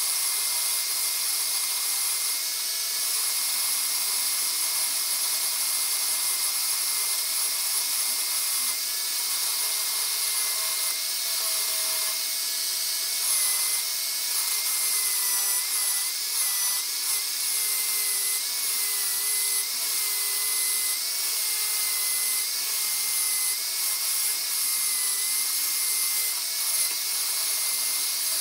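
Small metal lathe running with a steady whine that wavers slightly in pitch, a dumbbell part spinning in its chuck.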